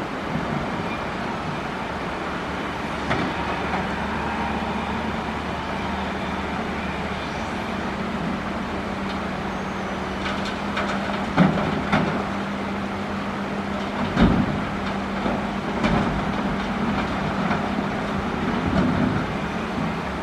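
Excavator's diesel engine running steadily under load, with several sharp knocks and scrapes in the second half as the bucket works coral rock.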